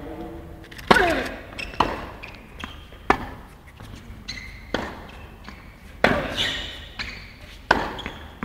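Tennis rally on an indoor hard court: a string of sharp racket strikes and ball bounces, one roughly every second or so, each ringing briefly in the hall.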